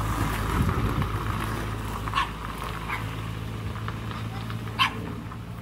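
A dog barking twice, two short sharp barks about two and a half seconds apart, the second louder, over a steady low mechanical hum.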